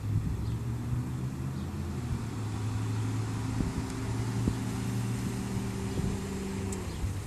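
Eighth-generation Honda Civic's four-cylinder engine running steadily at low speed as the car rolls slowly past close by, a low even hum.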